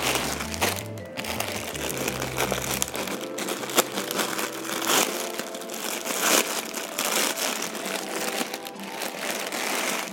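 Clear plastic packaging crinkling and rustling as a scarf in its plastic packet is handled, over background music.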